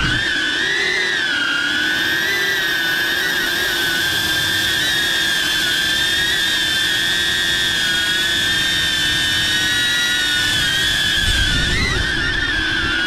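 DJI Avata FPV drone's motors and ducted propellers whining in flight, picked up by the GoPro mounted on it. The pitch holds mostly steady with small wavers as the throttle shifts, and briefly wobbles near the end.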